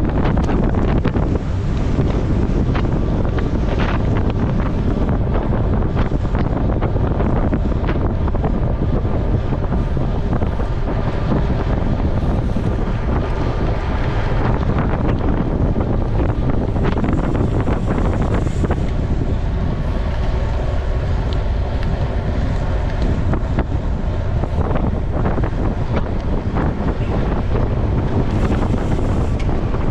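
Wind buffeting the microphone of a camera carried by a cyclist riding at race speed, a steady low rumble.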